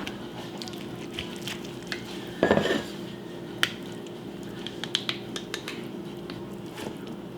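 Serving utensils clinking and scraping against dishes as mushroom pie is served onto plates: scattered light clicks, with a louder clatter about two and a half seconds in.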